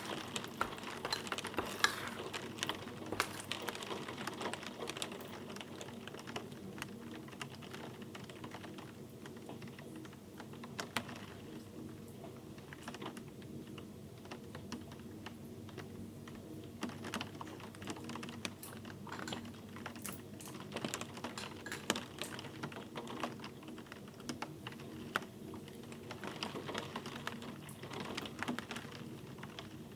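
Light, irregular clicking and tapping over a faint steady hum, busier at the start and again near the end.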